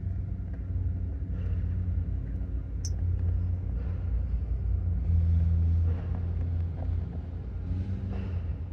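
Steady low machine hum, swelling a little for about a second midway, with a few faint clicks.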